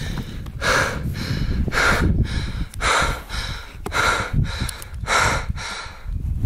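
A man breathing hard, about one heavy, audible breath a second, out of breath with excitement just after shooting a turkey.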